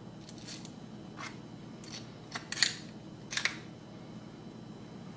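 Light metal clicks and clinks, about half a dozen, as a bearing removal tool is handled and fitted onto the crankcase of an OS V Spec .21 nitro engine, the sharpest about two and a half seconds in. The clicking stops after three and a half seconds or so.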